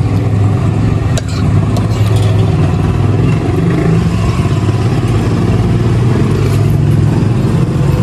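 A motor vehicle engine idling as a steady low hum, with a few light clinks of cutlery in the first couple of seconds.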